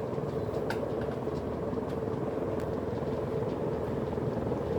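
48-inch Tatung ceiling fan running at speed: a steady rush of air from the blades over a steady motor hum.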